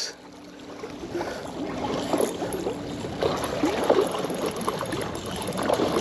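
Water splashing and sloshing against the rocks of a riverbank, irregular and choppy, as a big hooked blue catfish thrashes at the surface close in.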